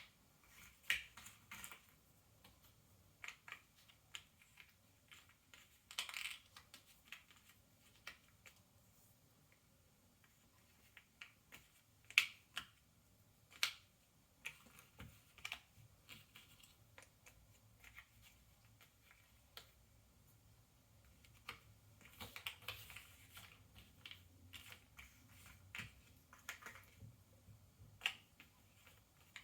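Cardboard Ravensburger jigsaw puzzle pieces being handled, set down and pressed into place on a tabletop. Faint, irregular taps and clicks come singly and in short flurries.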